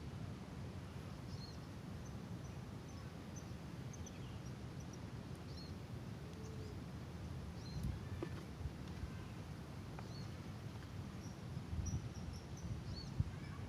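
Outdoor ambience: a steady low rumble with many short, high chirps of small birds scattered throughout, and a few soft knocks in the second half.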